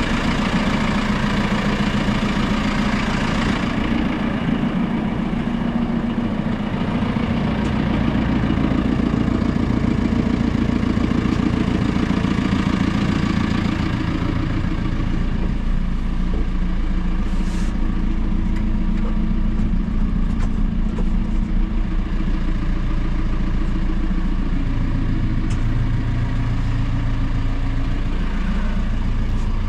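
Diesel engine of a JCB 4CX backhoe loader running, its pitch dropping about halfway through as the engine speed falls.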